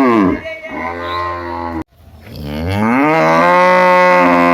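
A cow mooing. One loud moo falls in pitch and trails off in the first second, and after a brief break a second long moo rises and is held steady.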